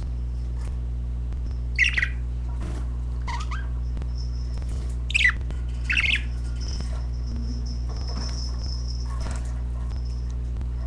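Pet budgerigars calling: four short, sharp squawking chirps, about two, three, five and six seconds in, with a thin high chatter between them, over a steady low hum.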